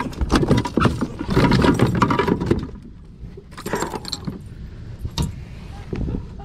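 A landed bass being handled on a plastic measuring board in the kayak: knocking and scraping against the board and hull, with the lure's hooks clinking. The clatter is dense for about the first two and a half seconds, then a few single knocks follow.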